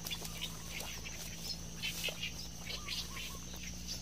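Small birds chirping in short, scattered calls over an insect's steady high-pitched drone.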